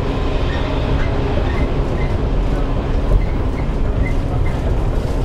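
Running sound heard inside a JR 115-series electric train's motor car (MoHa 115) on the move: a steady, loud rumble of steel wheels on the rails mixed with the drone of its MT54 traction motors.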